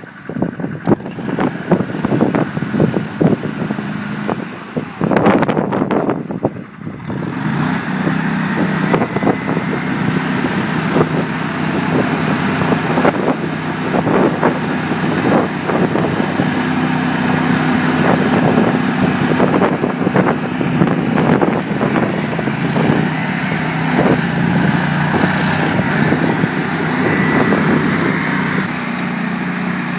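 Argo 8x8 amphibious ATV's engine running. The first several seconds are broken by short irregular knocks, and then it settles into a louder, steady drone from about seven seconds in.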